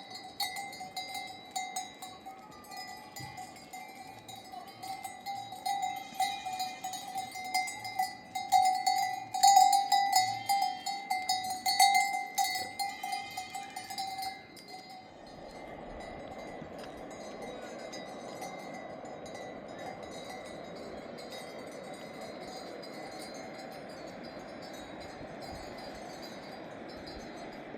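Metal livestock bells, as on a herd of goats, clanking and jingling unevenly with a steady ringing tone. About halfway through they cut off suddenly, and a steady, even hiss follows.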